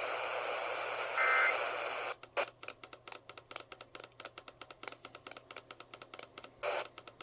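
Radio receiver hiss with a brief burst of Emergency Alert System data tones, the end-of-message signal that follows a relayed warning. After that comes a rapid run of sharp clicks, broken near the end by a short burst of static.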